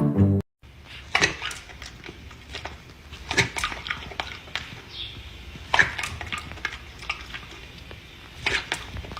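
A brief end of music, then a few scattered sharp knocks and clatters over a steady low background noise.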